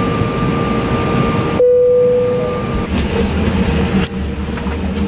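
Steady, loud vehicle noise: a rumble and hiss under a steady whine. A stronger tone comes in about a second and a half in, and a deeper rumble takes over after about three seconds.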